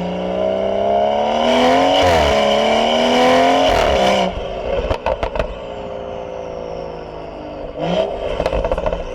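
BMW 440i's turbocharged B58 inline-six, fitted with a catless downpipe, accelerating hard: the engine note climbs, dips briefly at a gear change about two seconds in, and climbs again. Around four seconds in the throttle closes and the exhaust gives a few sharp crackles. The note then drops into a falling drone, and near the end a second short throttle blip brings more crackles.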